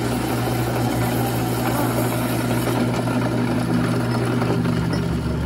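Drill press running with its bit boring through a steel plate: a steady motor hum under the noise of the cut.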